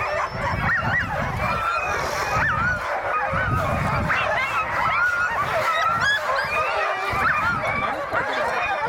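A chorus of many sled dogs yelping and howling at once, their calls overlapping without a break. Wind buffets the microphone underneath.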